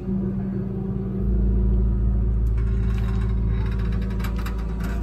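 Hitachi Zaxis 210W wheeled excavator's diesel engine and hydraulics working under load, heard from inside the cab: a steady low drone that grows louder about a second in as the full bucket is lifted and swung. Over the second half comes a scatter of light clicks and rattles.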